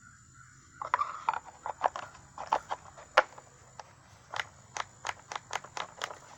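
Choke flaps and linkage of a Poulan Micro Pro Super XXV Deluxe chainsaw being worked by hand: a run of irregular sharp clicks and taps that starts about a second in.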